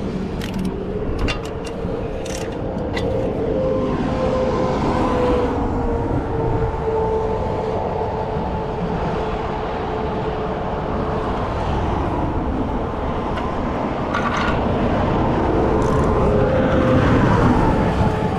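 Highway traffic passing close by, a steady rush of tyres and engines with a tone that slowly falls in pitch as a vehicle goes past and the noise swelling again near the end. A few sharp clicks sound in the first three seconds.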